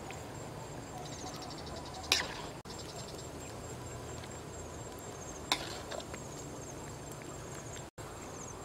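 Insects chirping steadily in rapid high pulses, with two sharp clinks of a metal spatula against the steel wok, about two seconds in and again about five and a half seconds in.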